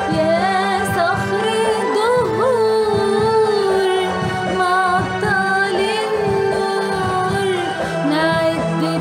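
Women singing an Arabic Christian hymn with an ornamented, wavering melody over an instrumental backing with a steady beat.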